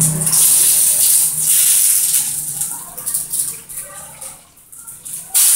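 Banana-leaf-wrapped lemper sizzling in a lightly oiled frying pan as they are turned over, a steady high hiss. It fades in the middle and comes back suddenly near the end.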